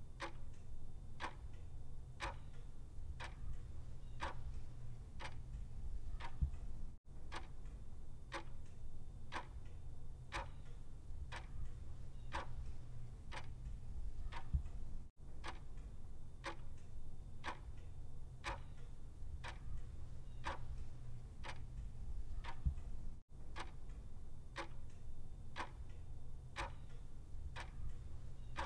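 Clock ticking with evenly spaced ticks, a little faster than one a second, over a low steady rumble. About every eight seconds the sound drops out for an instant, where the looped track restarts.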